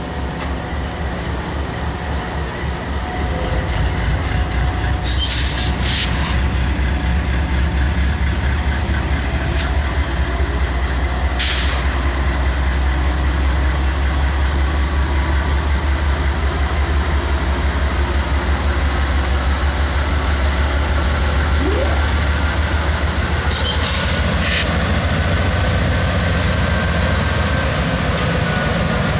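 GE diesel locomotive engine running with a steady low rumble as it pulls a train slowly past, growing louder about three seconds in. A few short, sharp high-pitched noises from the train cut in over it now and then.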